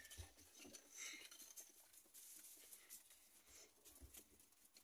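Near silence: faint rustling and soft patter of rabbits shifting about on straw inside a hutch.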